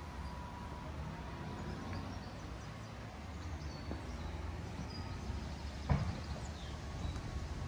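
Outdoor garden ambience: a steady low rumble with a few faint, short bird chirps, and a single knock about six seconds in.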